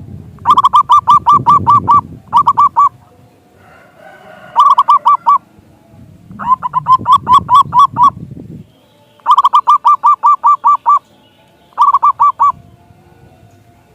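Zebra dove (perkutut) singing: six runs of rapid, evenly repeated coo notes, about five or six a second, with short pauses between runs.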